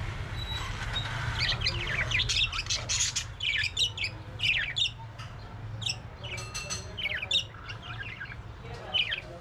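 Parrots calling in a busy run of short, sharp chirps and squawks, many sliding quickly downward in pitch, over a steady low rumble. The calls thin out after about seven seconds.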